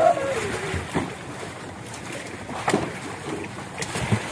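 Steady wind and sea noise on an open boat deck, with a few sharp knocks from a plastic tub of fish being handled and lifted on the wooden deck.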